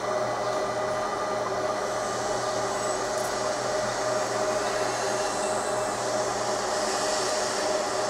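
Laser marking machine running with a steady hum and a constant tone, unchanging throughout.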